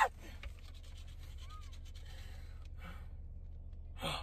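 Faint scratching of a scratch-off lottery ticket being rubbed off, over a low steady hum, with a short vocal sound near the end.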